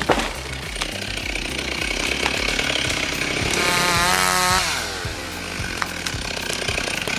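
Chainsaw running and cutting wood, with its pitch sweeping down about halfway through.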